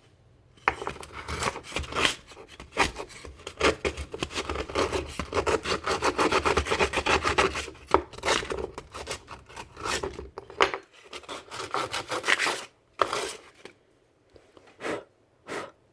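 Sandpaper rubbing in quick back-and-forth strokes over a part of a miniature Goatguns SVD Dragunov model gun, continuous for most of the time, then a few separate strokes with pauses near the end.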